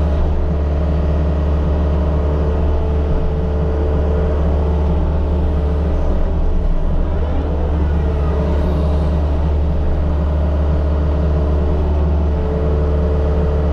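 The diesel engine of a compact earthmoving machine, a skid steer loader or mini excavator, running steadily under work while dirt is moved for backfill.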